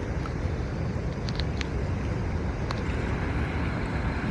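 Wind buffeting the microphone over the steady rush of a flooded river, with a few faint clicks.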